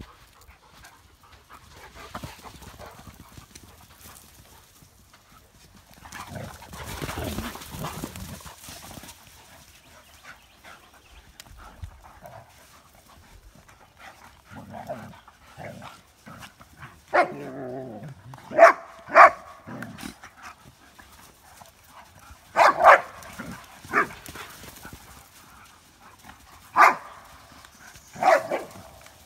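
Doberman and Dogo Argentino dogs play-fighting: a growl and then a string of short, sharp barks, spread over the second half. Before that there is only soft scuffling.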